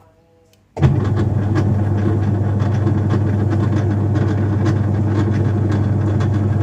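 The drive motor of an LG WF-T1137TD top-load washing machine switches on about a second in and runs with a loud, steady hum. The tub does not spin; the technician puts this down to a worn-out gear set.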